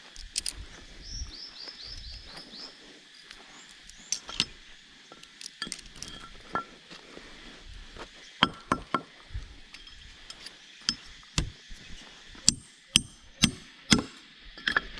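A run of sharp knocks, sparse at first and then about two a second in the last few seconds. Near the start a bird gives a quick series of about seven falling whistled notes over a steady high insect drone.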